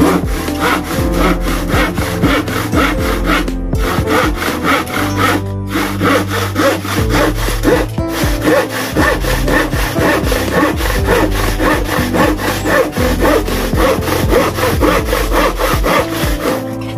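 Long old-style hand saw cutting through a plywood board in steady back-and-forth strokes, stopping briefly a few times.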